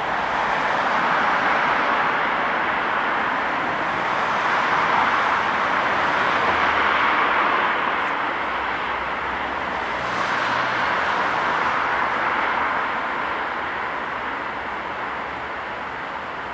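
Antonov AN-124's four D-18T turbofan engines running at high power, a loud, steady rush of jet noise that swells and eases and slowly fades toward the end.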